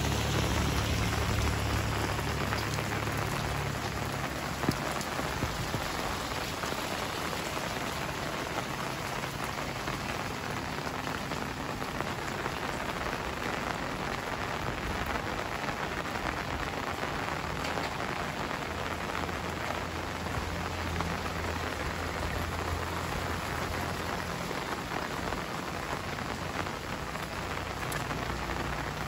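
Rain falling steadily, an even hiss of drops, a little louder in the first few seconds.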